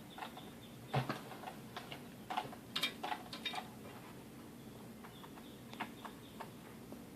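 Irregular clicks and crinkles of hands handling and prying at a plastic-and-card blister pack, with a couple of louder snaps about a second in and near three seconds.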